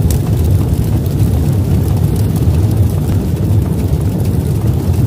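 Intro sound effect: a loud, steady, deep rumble, the drawn-out tail of a cinematic boom, with faint crackling above it.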